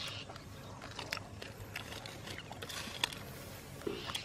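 Scattered light crackles and rustling of dry leaves and twigs as a person shifts and gets up from a crouch, with a few sharper snaps.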